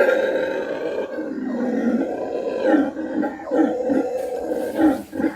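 Howler monkeys howling: a loud steady roar that breaks up into a run of short pulses after about a second.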